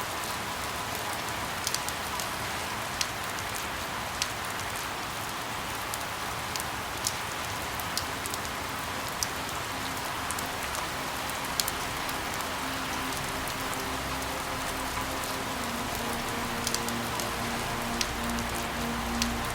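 Steady rain, with scattered single drops landing louder every second or two. Faint, soft sustained low tones come in about two-thirds of the way through.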